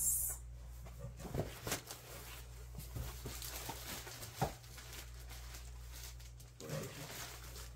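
Faint rustling and a few light clicks of packing supplies being handled: plastic-wrapped foam and cardboard moved about, over a steady low hum.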